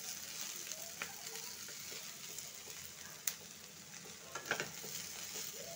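Mixed vegetables sizzling as they fry in oil in a nonstick pan, stirred with a wooden spatula. A steady hiss runs under a few light taps and scrapes of the spatula against the pan.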